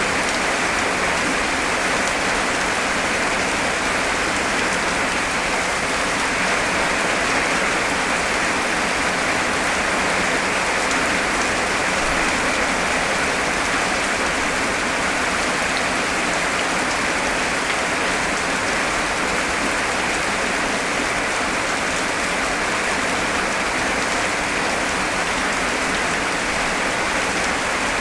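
Heavy rain pouring down steadily, a dense even hiss with no breaks or changes in strength.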